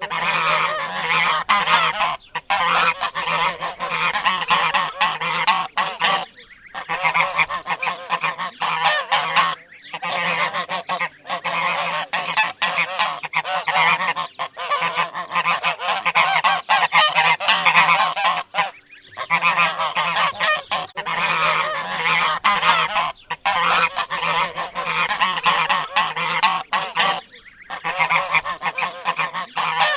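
Goose honking, call after call almost without a break, with a few short pauses.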